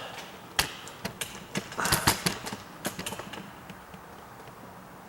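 Handling noise: a run of irregular clicks and knocks, thickest and loudest about two seconds in, then fading off.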